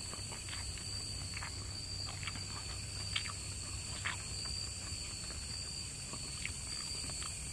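Insects chirring in a steady, high, unbroken drone, with a few faint soft clicks of someone eating rice and meat by hand.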